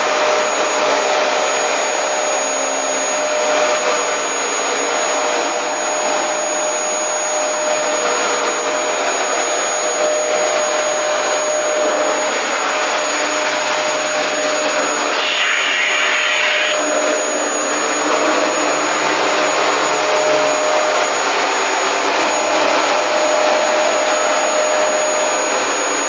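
Vacuum cleaner running steadily, a continuous motor whine over a rushing airflow, with a brief louder hiss about two-thirds of the way through.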